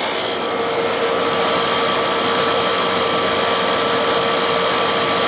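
Vintage General Electric air conditioner running, its old compressor still working. A steady whirring noise, with a steady hum that comes in about half a second in.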